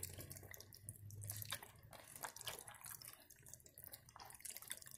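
Hand squishing raw chicken legs and thighs in a buttermilk marinade: faint, irregular wet squelches and clicks as the pieces are turned and coated.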